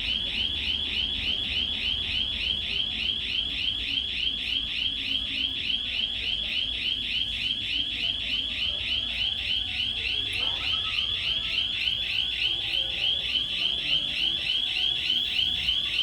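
Panic alarm sounding continuously: a shrill, high-pitched warbling tone that sweeps about three to four times a second without a break.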